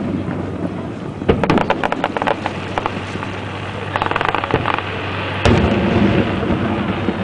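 Aerial fireworks shells bursting overhead: a boom about a second in, followed by a quick run of crackles, more crackling a few seconds later, and another boom near the end.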